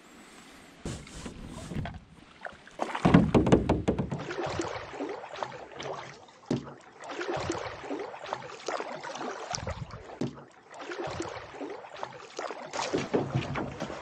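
Canoe being paddled: repeated paddle strokes splashing and swishing in the water, with sharp knocks in between. The first couple of seconds are quieter, then the strokes come in a busy, irregular run.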